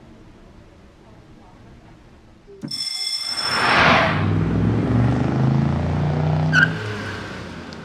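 A short, high-pitched tone about three seconds in, then a police car driving past: engine and road noise swell quickly, hold, and fade away.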